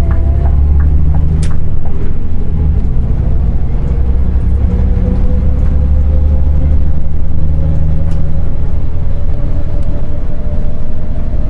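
Scania Omniexpress coach's diesel engine pulling hard under a full-throttle kick-down, heard inside the cab, its pitch rising slowly. Two brief clicks stand out, early on and about eight seconds in.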